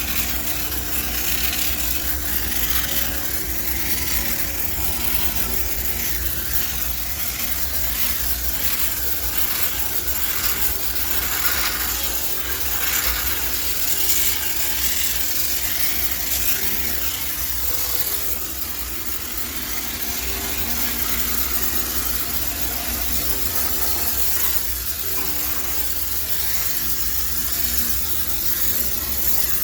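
High-pressure steam cleaner running: a steady hiss over a low machine hum, with a run of short repeated rubbing strokes in the first half.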